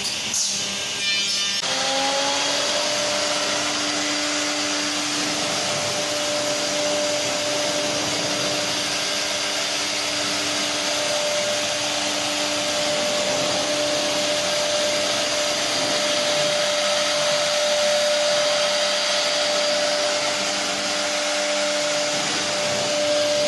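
Two-head CNC wood router at work: a few clicks, then the spindles spin up with a short rising whine about two seconds in and settle into a steady high whine over a constant rushing noise of cutting.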